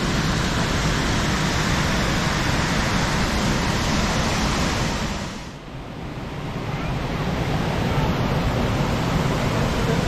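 Monsoon-swollen waterfall rushing steadily, a loud even roar of falling water; it drops away sharply about halfway through and swells back up.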